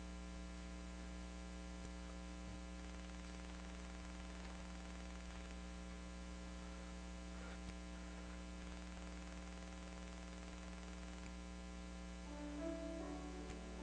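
Steady electrical mains hum with faint room noise. About 12 seconds in, a piano starts to play.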